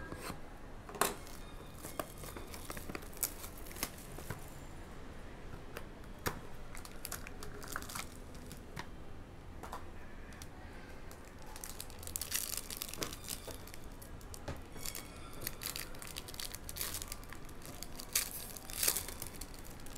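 Foil wrapper of a trading card pack crinkling and being torn open, with dense crackling bursts about twelve seconds in and again near the end. Scattered sharp clicks and knocks from the box and pack being handled on a table.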